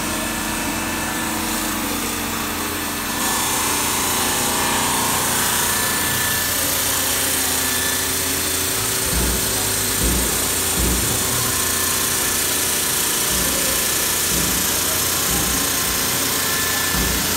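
Sasso K600 CNC bridge saw running, its water-cooled diamond blade cutting through Welsh slate with a steady grinding hiss that gets louder about three seconds in. Occasional low thuds come in over the second half.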